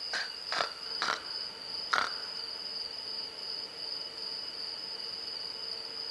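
Crickets trilling steadily at a high pitch, with a few short, soft noises in the first two seconds.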